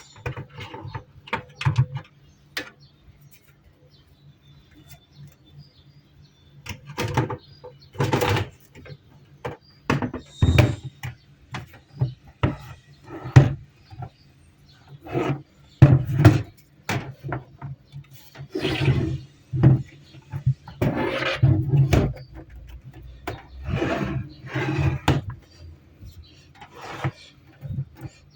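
Irregular clicks, knocks and short scrapes of hard objects being handled, likely CCTV recorder or hard-drive hardware, over a steady low hum.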